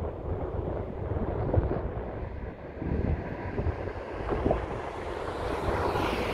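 Wind buffeting the microphone in gusts, over the distant jet noise of an Airbus A380's four Engine Alliance GP7200 turbofans, which grows louder and brighter toward the end.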